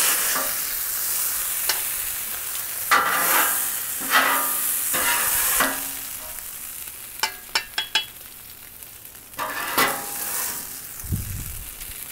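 Ground beef sizzling on a Blackstone griddle's steel top while a metal spatula scrapes it up in several strokes with a metallic ring. A few sharp clicks come in the middle, the spatula knocking against a stainless colander.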